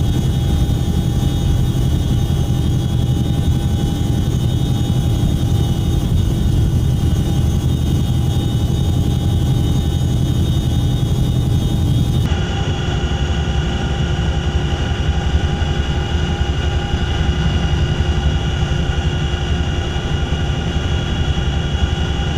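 CH-47 Chinook tandem-rotor helicopter in flight: steady rotor and turbine engine noise with a constant whine over a deep rumble. The sound shifts abruptly about halfway through, the high hiss dropping away and the whine changing pitch, as if cut to another recording.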